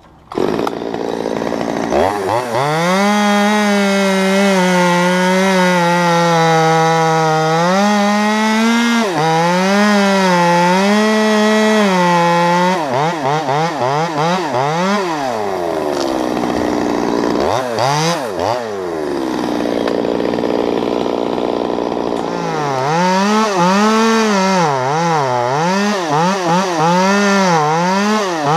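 Top-handle chainsaw cutting through walnut limbs at full throttle, its engine pitch sagging and recovering as the chain loads up in the wood. About halfway through it drops back toward idle with a few revs, then bites into the wood again near the end.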